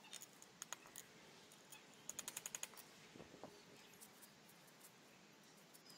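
Faint scattered metallic clicks and taps from hand tools working a thin metal support strip off the bench slats, with a quick run of about eight clicks about two seconds in.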